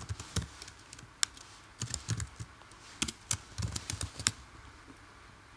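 Computer keyboard being typed on: a run of irregular key clicks that stops about four seconds in.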